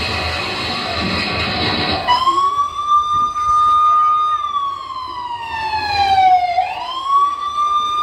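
Emergency-vehicle siren sound effect on a mime's recorded soundtrack. Dense music cuts off about two seconds in, and a single siren wail starts, rises, holds, falls slowly for a few seconds and rises again.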